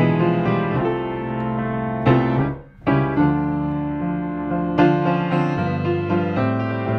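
Solo piano music playing a gentle melody, with a brief pause about two and a half seconds in before the notes resume.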